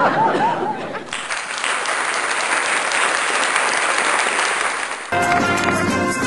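Applause from an audience, with a few cheers near the start, cutting about five seconds in to upbeat music.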